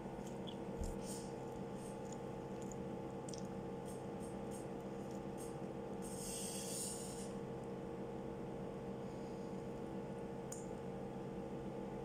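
Faint crackles and small clicks of a crisp flatbread pizza being torn and handled by hand, with a short louder crackling rustle about six seconds in, over a steady background hum.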